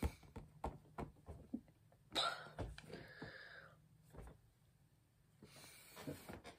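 A person's faint breathing between sentences, with a sharp breath about two seconds in and softer breaths near the end, over small clicks of movement.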